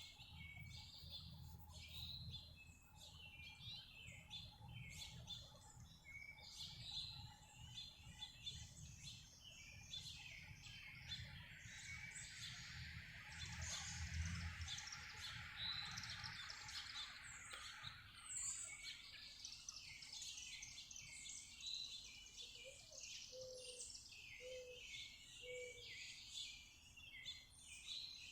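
Many small songbirds chirping in quick, overlapping calls throughout. A hiss swells and fades about halfway through, with a low rumble under the first half, and four short low notes sound near the end.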